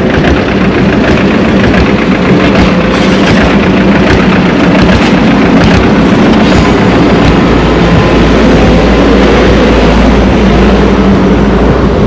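Heavy engine of road-construction machinery running loud and steady, with the deep rumble growing stronger about two-thirds of the way through.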